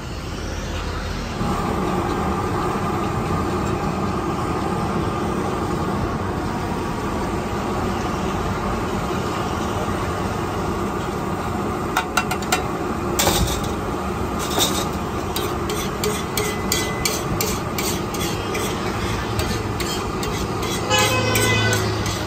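Metal spatula clicking and scraping on a flat iron griddle as egg mixture is chopped and spread, in irregular taps from about halfway through and thickest near the end. Under it, a steady horn-like hum runs throughout.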